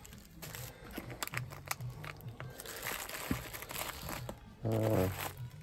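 Small plastic bags of carbon motor brushes crinkling and rustling as they are handled and sorted in a plastic parts organiser, with many light clicks and crackles.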